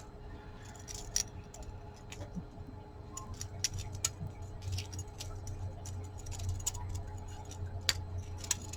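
Faint, irregular light clicks of necklace beads knocking together as the jewelry is handled, over a steady low hum.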